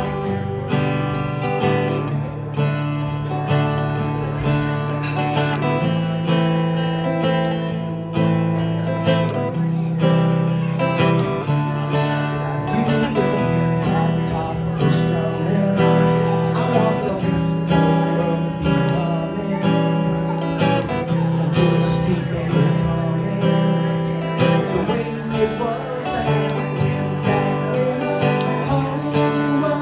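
Music led by strummed acoustic guitar, with held low notes that change every few seconds.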